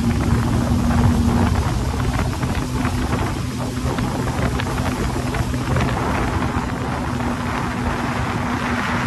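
Jet ski engine running steadily at speed, a constant hum over the rush of water and wind.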